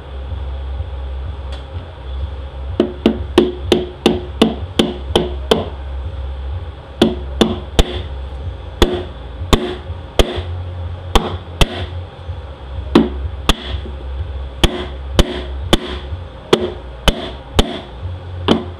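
A red mallet tapping repeatedly on the front pump and stator support in the bell housing of a 68RFE automatic transmission, in sharp knocks about two to three a second. The knocks start about three seconds in and pause briefly in the middle, over a steady low hum.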